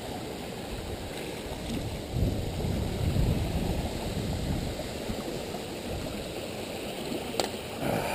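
Wind buffeting the camera's microphone, a gusty low rumble that rises and falls, with one sharp click a little past seven seconds in.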